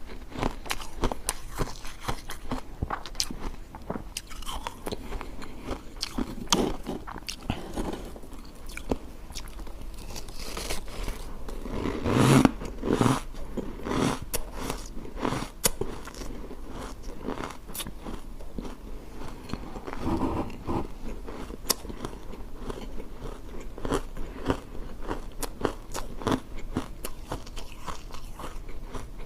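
Refrozen block ice being bitten and chewed close to the microphone: a steady run of sharp crunches and cracks, with a louder burst of crunching about twelve seconds in and again about twenty seconds in.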